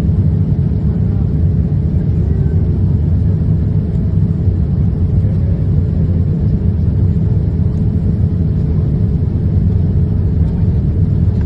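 Steady low rumble of a Boeing 787-9's engines and airflow heard inside the passenger cabin in flight.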